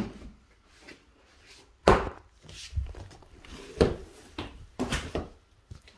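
A few dull knocks and thumps at irregular spacing, roughly a second apart, the loudest about two seconds in.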